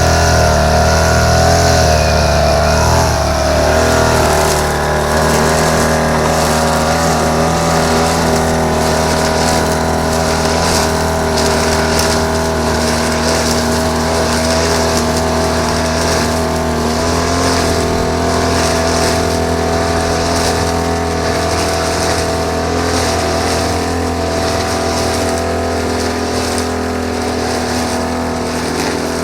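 Small engine of a grass-cutting machine running steadily at high speed, its pitch wavering for the first few seconds and then holding even.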